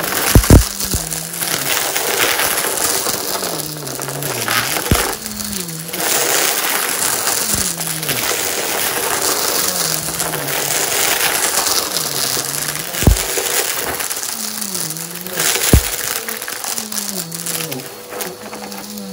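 Vacuum cleaner running steadily while picking up crunchy debris, its low hum wavering up and down every couple of seconds. Several sharp thumps stand out, the loudest about half a second in, and again around thirteen and sixteen seconds in.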